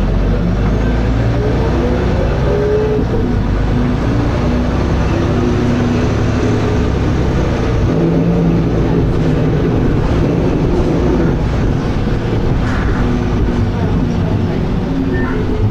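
Dennis Arrow double-deck bus under way, heard from on board: a steady low engine drone with short whining tones from the drivetrain coming and going.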